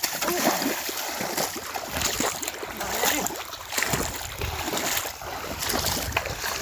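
Water splashing and sloshing as legs wade quickly through knee-deep water.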